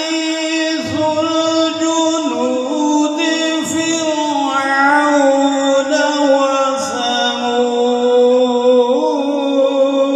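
Melodic Quran recitation (tilawat) by a male qari, holding long notes with slow rising and falling ornaments, amplified through a microphone and sound system.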